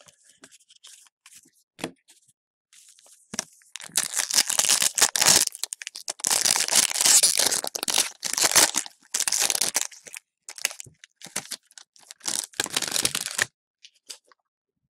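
Hockey card pack wrapper being torn open and crinkled, in loud crackly stretches from about four seconds in, stopping shortly before the end, after a few seconds of quiet card handling.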